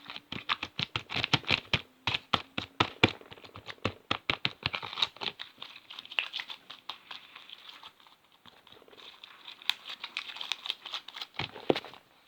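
Slime being handled roughly, squished and pulled by hand: rapid, irregular sticky clicks and crackles, with a short lull about eight seconds in.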